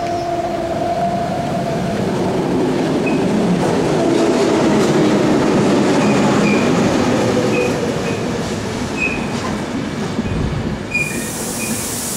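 ÖBB S-Bahn electric multiple unit running along the platform: a steady rumble of wheels on rails that swells and then eases, with brief high wheel squeals. A hissing rush starts near the end.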